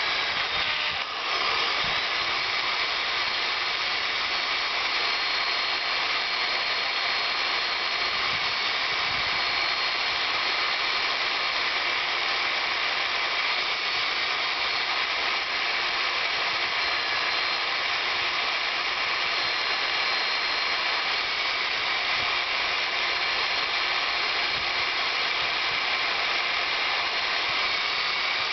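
Electric drill running steadily under load, turning a home-made core drill bit into sandstone; the sound dips briefly about a second in, then holds steady.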